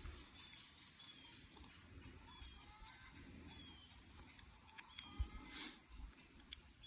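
Faint outdoor ambience of small creatures chirping: short, high, falling chirps repeating every second or so, with a single sharp click about five seconds in.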